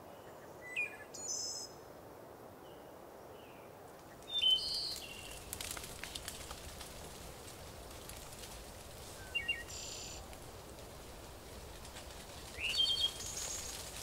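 Birds calling: a handful of short, high chirps scattered across several seconds, some rising in pitch, over a faint steady hiss of outdoor background.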